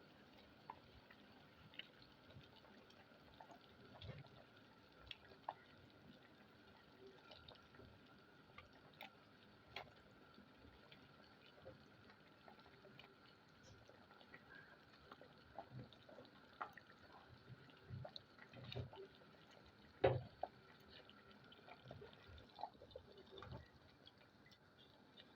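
Chicken curry simmering in a pot: faint bubbling with scattered soft pops, and one louder knock about twenty seconds in.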